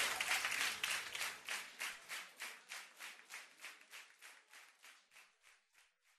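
Audience applause, the clapping settling into an even beat of about four claps a second as it fades out.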